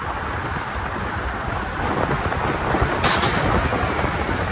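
Steady rush of wind and tyre noise from a car driving along a highway, heard from inside the car, with a short louder gust of hiss about three seconds in.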